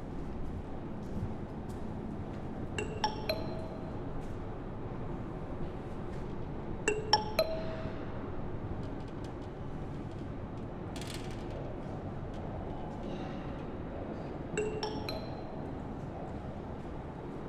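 Metro train running with a steady rumble, broken three times by a pair of sharp metallic clinks that ring briefly, like wheels striking rail joints. A brief hiss comes past the middle.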